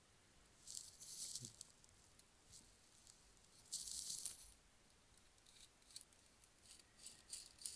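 Parts of a Fleischmann H0 model locomotive chassis rattling and scraping as it is handled and its small gears and wheels are turned by hand, with two brief rattles about one and four seconds in and a run of light clicks near the end.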